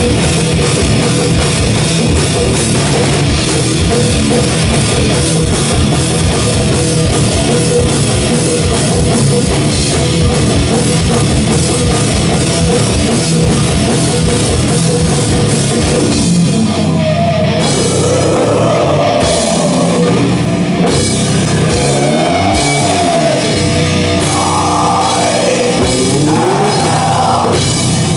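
Live heavy metal band playing loud: distorted guitar and bass with a full drum kit. About two-thirds of the way in the dense wall of sound thins out, and sliding, wavering high pitched lines come forward over the drums and cymbals.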